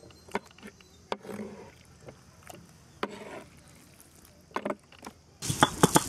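A few faint, scattered knocks and clicks. Then, about five and a half seconds in, a stone roller starts grinding dried red chillies on a stone grinding slab (ammi), a loud, dense run of crunching and clicking.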